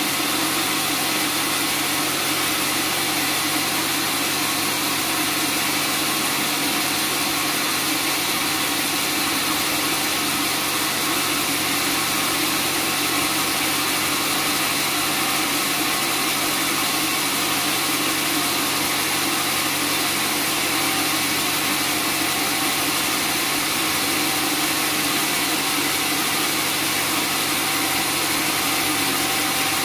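Band sawmill running steadily with no cut under way: a constant machine drone with a hiss over it, unchanging throughout.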